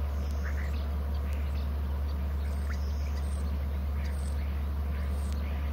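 A steady low hum throughout, with faint, short bird calls now and then.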